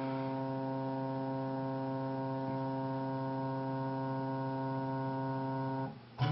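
Background music: a single chord held steadily on an electronic keyboard, breaking off briefly near the end before the next chord begins.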